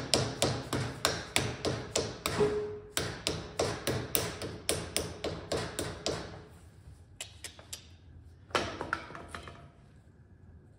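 Steady light hammer taps on metal, about three a second, seating the LS-to-turbo 400 adapter ring on the engine. The taps stop about six seconds in, then come a few scattered clicks and a short cluster of taps.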